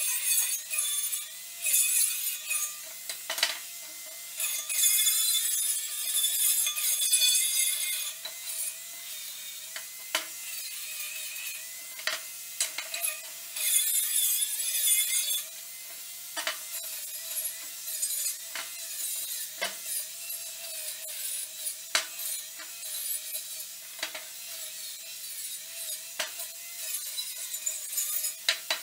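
Electric angle grinder running throughout with a steady whine, biting into steel tubing in long stretches of loud hissing for most of the first eight seconds and again around the middle. Between cuts it spins with a quieter whine, broken by a dozen or so sharp metallic clicks.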